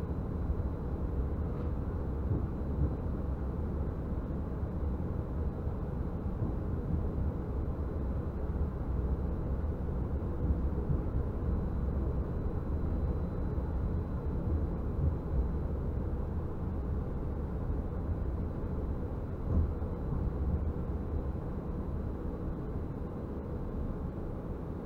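Stadler Variobahn low-floor tram running along the line: a steady low rumble of wheels and running gear, with a faint steady whine over it.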